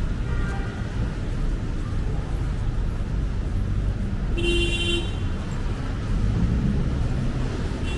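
Steady city street traffic noise, with a short high-pitched horn toot about four and a half seconds in.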